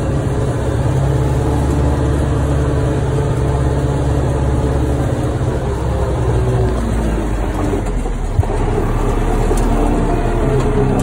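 MTZ-1025 tractor's four-cylinder turbodiesel running steadily under load, heard from inside the cab while it pulls a disc harrow through the soil. A single sharp click about eight seconds in.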